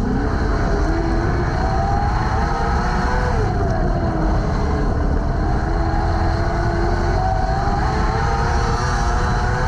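Junior sprint car's engine heard from the cockpit over a heavy low rumble. The revs climb through the first few seconds, drop about three seconds in, hold steady, then climb again near the end as the car races around the dirt oval.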